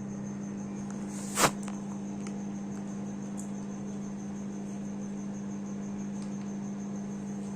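Microwave oven running with a steady electrical hum, cooking a papad without oil. A single sharp crack about one and a half seconds in, with a few faint ticks here and there.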